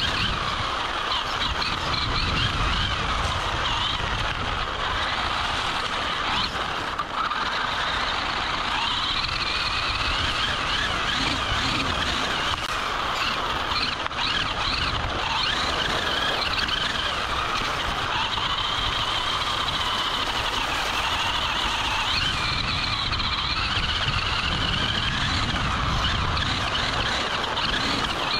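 Electric drivetrain of a Vaterra Twin Hammers RC rock racer whining, the pitch wavering up and down as the throttle changes, heard from a camera on the car over a rough low rumble as the chassis bounces over dirt.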